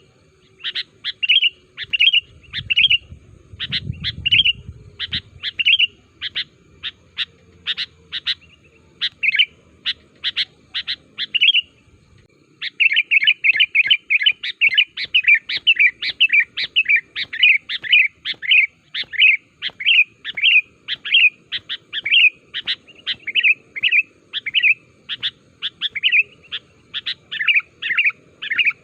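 Sooty-headed bulbul (kutilang) calling over and over in short, bright chirping notes. About twelve seconds in it pauses briefly, then comes back in a faster, denser run of notes.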